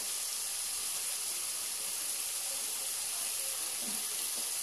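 Onion-and-spice masala, loosened with a spoonful or two of water, sizzling in a steel pan: a steady, soft hiss.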